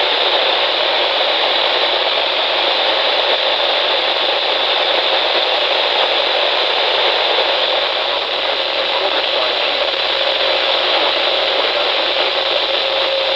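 Steady, loud static hiss from a NOAA weather radio receiver: the station's signal has dropped out in the middle of a warning, leaving only noise. A faint steady tone comes in under the hiss about two-thirds of the way through.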